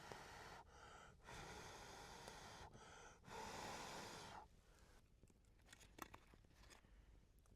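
A person blowing out three long, even breaths, each about one and a half seconds, with short pauses between them. After the last one, faint scattered ticks and clicks follow.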